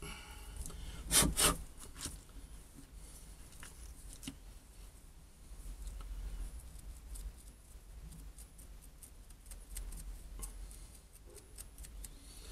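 Aluminium foil crinkling and rustling as foil-wrapped pieces of a fossil ammonite nodule are handled and unwrapped, with many light clicks and a louder pair of clicks about a second in.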